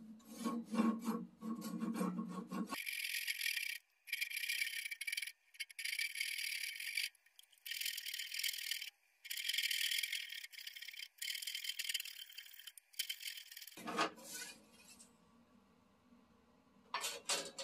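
Fine-toothed handsaw cutting through the small black cherry nub between a turned bowl and the lathe's tailstock, in quick back-and-forth strokes with short pauses every second or two. A single knock about fourteen seconds in, then a few more brief scraping strokes near the end.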